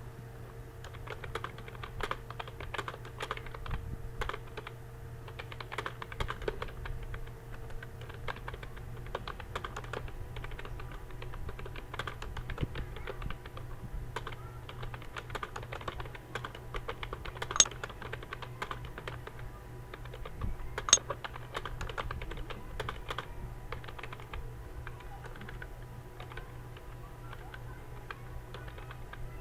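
Computer keyboard being typed on continuously at a test pace of about 44 words a minute: a dense, uneven run of key clicks. Two sharper, louder key strikes come about two-thirds of the way through, over a steady low hum.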